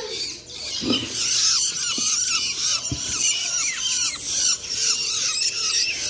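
A boxful of young hand-fed long-tailed shrike chicks chirping rapidly and continuously, many high calls overlapping. A few light knocks of the cardboard box come in between.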